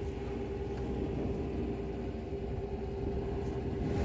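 Motorboat engine running steadily, a constant hum over a low rumble, heard from on board the boat.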